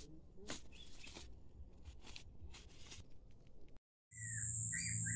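Faint outdoor background with scattered bird chirps and the crackle and rustle of dry leaves and a sack being handled by hand. After an abrupt cut, a steady high insect drone comes in over a low hum.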